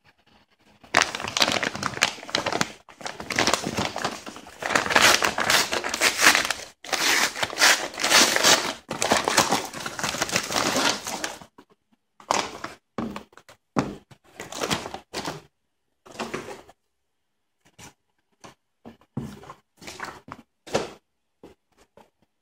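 Crinkling and tearing of a shipping envelope as it is opened and the box is pulled out, continuous for about ten seconds. After that come shorter, separate rustles and bumps as the shrink-wrapped box is handled.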